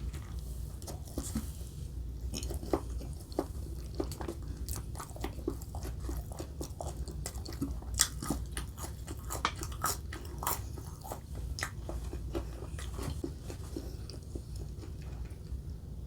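Close-miked chewing of Burger King food, with many irregular crunches and wet mouth clicks over a steady low hum.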